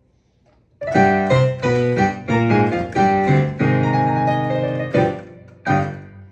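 Digital piano playing a lively ragtime piece with both hands, starting with chords and bass notes about a second in. Near the end a chord fades briefly before another is struck and left ringing.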